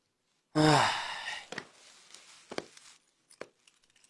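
A woman's muffled hum through duct tape over her mouth: one short sound, falling in pitch, about half a second in, followed by a few faint clicks and rustles.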